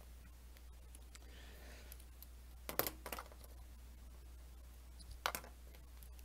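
Pen writing on paper: faint scratching, then two short sharp clicks of the pen striking the page about two and a half seconds apart, over a steady low hum.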